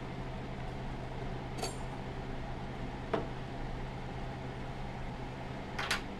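Old peanut oil in an electric deep fryer sizzling steadily, while a metal fork clinks against the fryer's metal pot three times; the last, near the end, is a short rattle.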